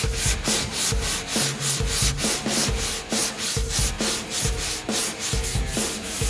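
Hand sanding with a long sanding board pushed back and forth over a foam-and-microballoon cowling plug: a rapid, even scraping rasp of about four strokes a second.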